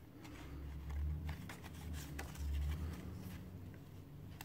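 Light rustling and faint clicks of card-stock die-cut pieces being handled and separated, over a low rumble that swells twice.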